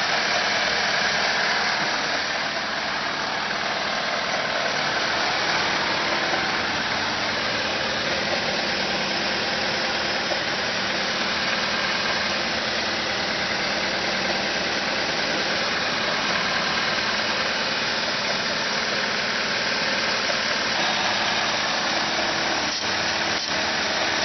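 Car engine idling steadily. The owner suspects a vacuum leak behind the engine's habit of revving up when it should idle.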